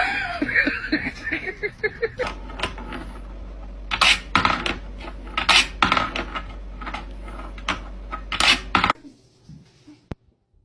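A sudden wavering cry, then a run of irregular clinking, clattering knocks that stops about nine seconds in.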